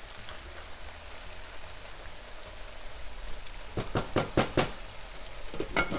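Chicken frying in clarified butter in a pan, a steady sizzle. A quick run of four or five knocks comes about four seconds in, and two more near the end.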